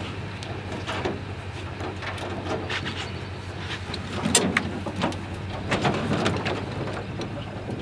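Knocks and clatters of feet and hands on a 16 ft semi-V aluminum jon boat as a person climbs aboard from the trailer, with a loud bang about halfway through. A steady low hum runs underneath.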